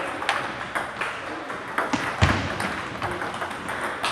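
Table tennis rally: the ball clicks sharply off paddles and table top at an irregular pace, with a heavier thump just past two seconds.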